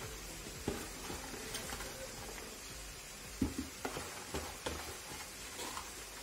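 Shredded cabbage tipped by hand from a plastic tub into an aluminium pot: soft rustling, with a few light knocks and clicks about a second in and again midway.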